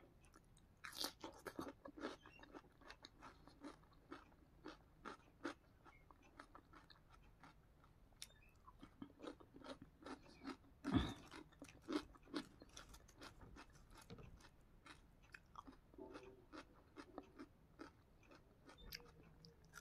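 A person biting and chewing ridged potato chips close to the microphone: a run of short, sharp crunches, the loudest about eleven seconds in.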